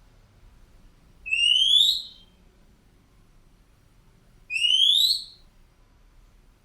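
Black drongo calling: two loud, clear whistled notes a few seconds apart, each about a second long and rising in pitch.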